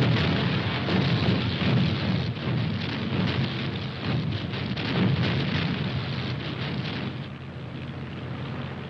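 Bombs bursting: a dense rumble with crackling. It swells about a second in, again just under two seconds in, and around five seconds, then dies down to a lower rumble near the end.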